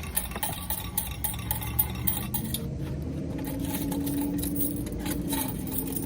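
Loose coins clinking and rattling as they are picked out of a vehicle's interior, a run of small scattered clicks.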